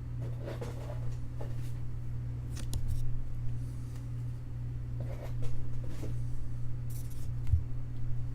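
Handling of trading card packs, wrappers and boxes on a table: a few short rustles and scrapes, spaced a second or two apart, over a steady low hum.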